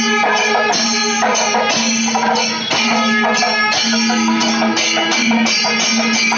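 Kerala temple percussion ensemble playing: bronze ilathalam cymbals and hand drums struck in a steady rhythm of about three strokes a second, with curved kombu horns sounding a held low note that breaks off and resumes.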